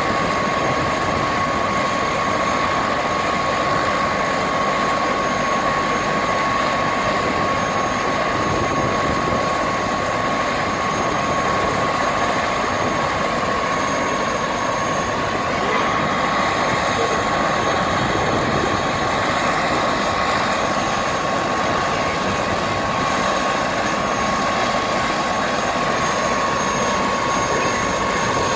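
Helicopter running on the ground with its rotor turning, warming up for take-off: a steady noise of rotor and engine with a constant high whine over it.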